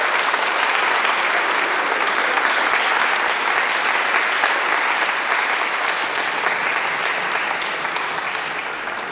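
Crowd of guests applauding, a dense steady clapping that slowly fades over the last few seconds.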